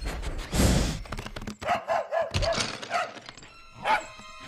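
Animated dachshund barking: about five short yipping barks in quick succession, then one more near the end, after a brief noisy rush about half a second in.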